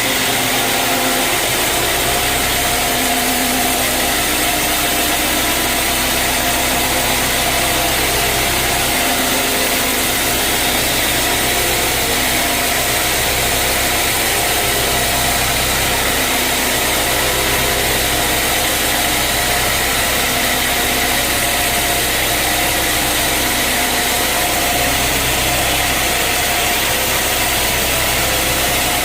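Sawmill machinery running steadily: a loud, even machine drone with a low hum and a few steady tones, no pauses or surges.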